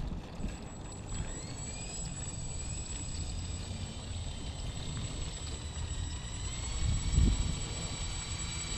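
High electric whine of a remote-control B-24 Liberator's four brushless motors and propellers. The pitch rises about a second in and again near the end, over a low rumble with a thump near the end.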